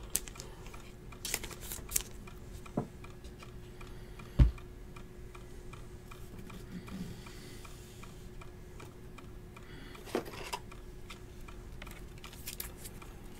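Handling a trading card and slipping it into a rigid plastic toploader: a few faint scattered clicks and taps, with one louder thump about four seconds in, over a faint steady hum.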